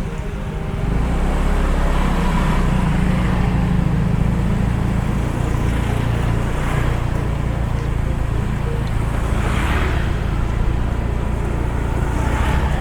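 Vehicle engine running steadily while driving through street traffic, its low drone growing louder about a second in. A few brief swells of other passing traffic.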